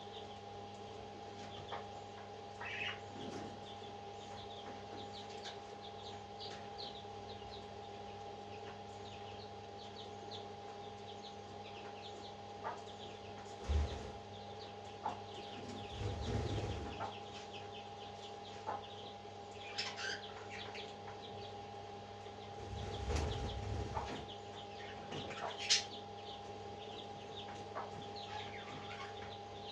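Baby parrot chicks cheeping in short, scattered chirps over a steady mechanical hum, with a few low bumps and a sharp click in the second half.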